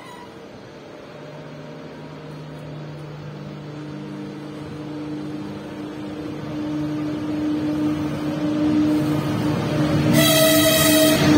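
ČD class 362 electric locomotive pulling a passenger train into the station, its steady hum growing louder as it approaches and passes close by. A short horn blast sounds about ten seconds in.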